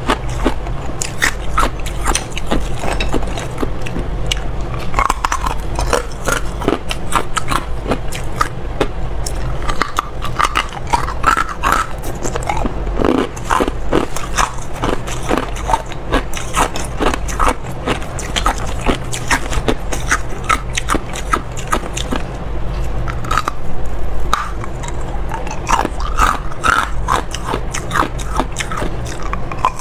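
A person biting and chewing ice, with dense, irregular crunching and cracking that carries on throughout, loud and close.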